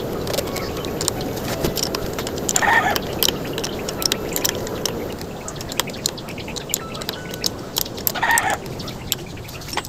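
Irregular small metallic clicks and taps of a hand tool on the bolts of a motorcycle brake master cylinder's handlebar clamp. Two short bird calls sound in the background, about 3 seconds in and again near 8 seconds.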